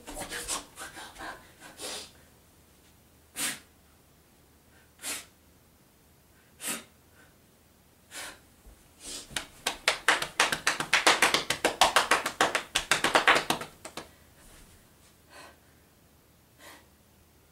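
A woman's breathy vocal huffs and gasps, acting out a dog's attack: single sharp puffs about a second and a half apart, then a fast run of rapid puffs for about five seconds, dying away to a few faint ones near the end.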